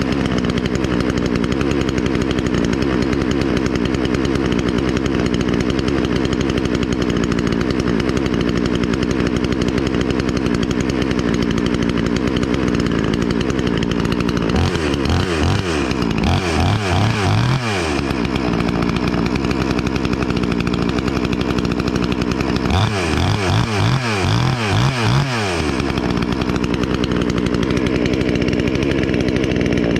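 Wemars WS-6220G 62cc two-stroke chainsaw, a Zenoah clone, idling steadily. It is revved in quick throttle blips twice, about halfway and again a few seconds later.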